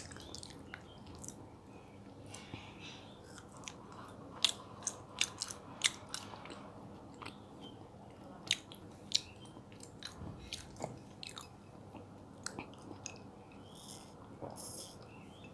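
Close-miked mouth sounds of biting and chewing soft mango jelly, with scattered sharp wet clicks and smacks. Near the end comes a sip from a glass of orange juice.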